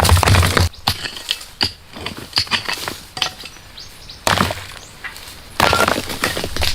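Dry wood cracking and snapping: three loud bursts of crackling, at the start, past the middle and near the end, with smaller cracks and clicks between, like dry branches being broken.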